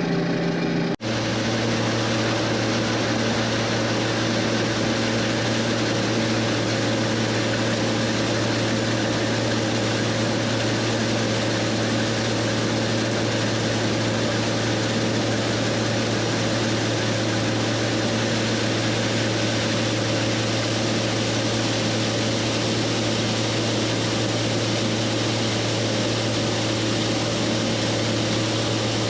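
John Deere 6620 combine running steadily under harvesting load, a constant low engine drone with machinery hum over it and a short break about a second in.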